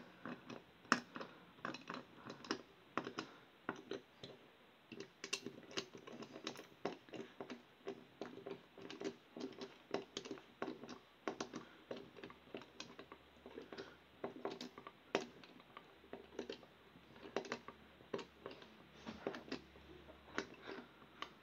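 Faint, rapid, irregular clicking and tapping of a small screwdriver and a plastic night-light casing being handled while screws are driven back in.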